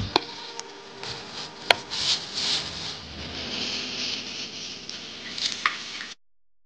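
A metal spatula cutting into pressed mung bean cake and tapping against its metal tray, with a few sharp clicks in the first two seconds. A softer rustle follows, and the sound cuts off suddenly about six seconds in.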